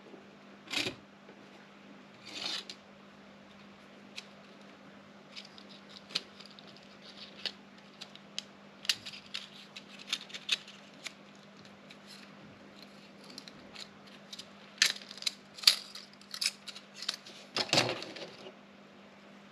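Erika 3004 electronic typewriter printing: an irregular run of sharp clacks, with a louder burst of strikes near the end, over a steady low hum.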